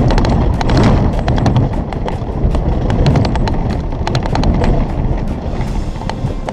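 A runaway Jeep, broken loose from its tow dolly, rolling over rough grass and dirt: a steady low rumble with irregular knocks and rattles as it bounces.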